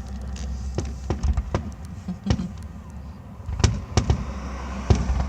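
Fireworks going off: about seven sharp bangs at uneven intervals, some in quick pairs.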